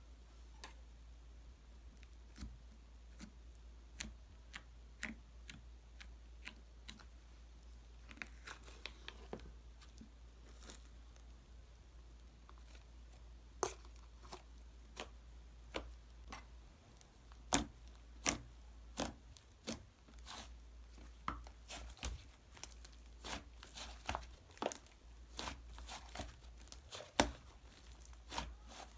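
Fluffy slime squeezed and poked by hand, giving off irregular sharp pops and crackles that come more often in the second half.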